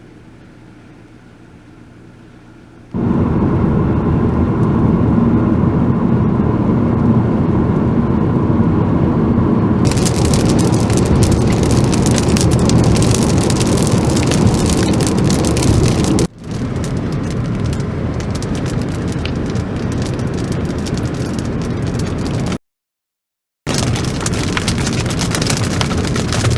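Heavy rain and wind-driven hail pelting down. A loud rush of rain and wind starts suddenly a few seconds in, and a dense, rapid rattle of hailstone hits joins it about ten seconds in.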